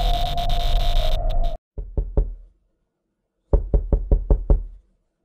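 Knocking: three knocks, then after a pause a quicker run of about seven knocks. Before the knocks, a steady electronic hum with glitchy crackles cuts off suddenly.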